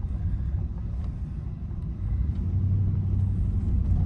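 Low, steady rumble of wind buffeting the microphone.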